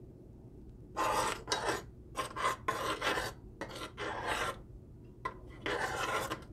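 Metal spoon scraping around the bottom of a stainless steel saucepan, stirring boiling black tea with ground spices. The stirring starts about a second in and goes as a series of short scraping strokes.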